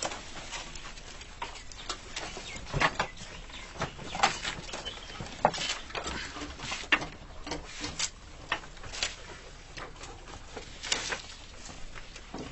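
Goats moving about a goat shed: scattered, irregular hoof knocks and clicks, about one or two a second, some sharp and loud.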